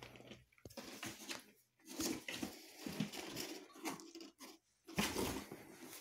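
Irregular rustling and scuffling noises with brief clicks, coming and going in uneven bursts, the loudest about five seconds in.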